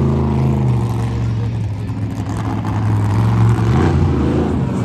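Monster truck engine running with a loud, steady low drone.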